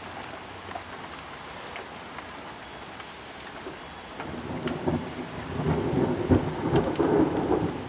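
Steady heavy rain, with a rumble of thunder building about halfway through and peaking near the end: a medium clap, not as loud as it could have gone.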